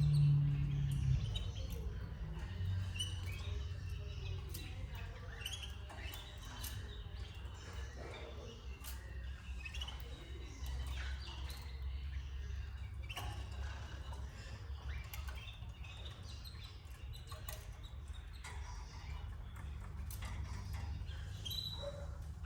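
Canaries at the nest giving scattered short chirps and peeps, with small clicks, over a steady low hum.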